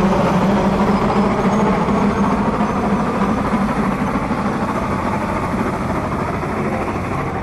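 Steam traction engine running steadily under load, its long flat belt driving a belt-powered water pump. A loud, steady mechanical noise that sounds like a train rolling.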